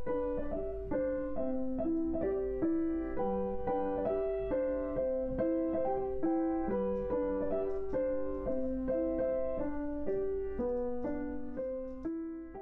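Credits music: a gentle melody of single piano notes, a few to the second, each ringing and dying away, fading out near the end.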